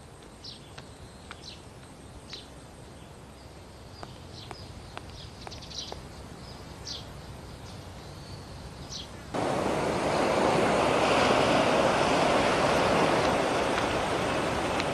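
Outdoor ambience: a faint background with scattered short high chirps and a few light clicks, then, about nine seconds in, a sudden switch to a louder steady rushing noise.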